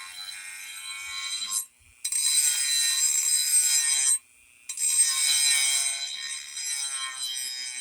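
Dremel rotary tool grinding the edge of a steel lawn mower blade at low speed: a steady high-pitched whine with a grinding rasp. It cuts out briefly twice, about two and four seconds in.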